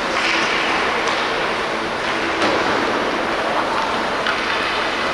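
Ice hockey rink sound during play: a steady hiss of skates scraping and carving the ice, with a few sharp knocks of sticks hitting the puck or each other.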